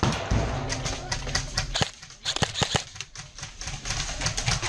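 Airsoft guns firing in quick strings of shots, a rapid clicking rattle that comes in scattered shots at first and then in dense bursts from about halfway through.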